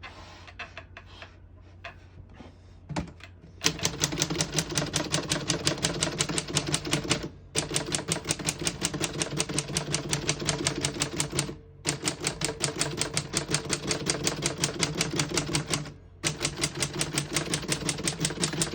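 1936 Corona Standard portable typewriter being typed on. A few faint clicks come first, then fast, even keystrokes in four runs of about three to four seconds each, with short pauses between them. The keys strike cleanly, none skipping or sticking.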